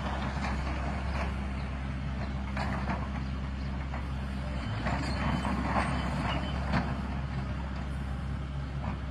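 Crawler excavator's diesel engine running steadily, with a few short knocks scattered through.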